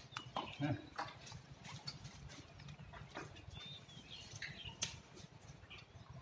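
Elephants feeding on bananas, their trunks rummaging in a plastic crate and on a concrete floor: scattered soft rustles and knocks, with a sharper click about five seconds in.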